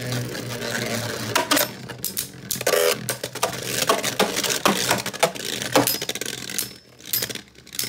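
Two Beyblade Burst spinning tops, Astral Spriggan and Savior Valkyrie, clashing in a plastic stadium: irregular sharp clicks and clatters as the attack-type Valkyrie repeatedly strikes Spriggan, some hits giving a brief high ping.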